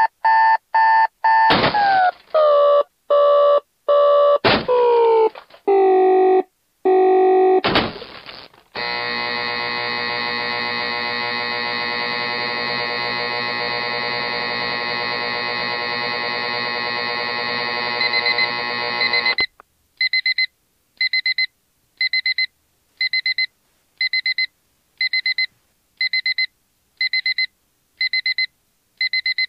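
Electronic soundtrack for a stage dance: a run of short synthesized tones with gaps, then a steady buzz for about ten seconds that cuts off suddenly, then alarm-clock-style beeping about once a second.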